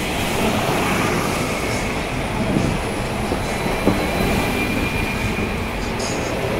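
Hong Kong double-decker tram running, heard from inside the car: a steady rumble of steel wheels on the street rails, with a faint squeal in the middle and a single sharp knock about four seconds in.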